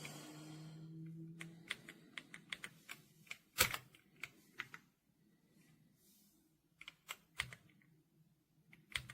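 Keys on an RK Royal Kludge R75 mechanical keyboard with silver switches being pressed one at a time, an irregular run of clacks about two to five seconds in with the loudest about three and a half seconds in, then a few more near the end. A faint low hum is heard in the first second or so.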